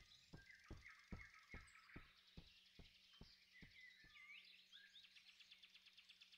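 Faint forest ambience of birds chirping, with a row of soft low thumps about two or three a second that fade away about halfway through.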